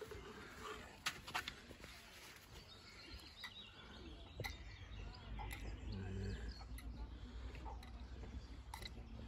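Faint bird calls, with a few light clicks and rustles from a landing net being handled.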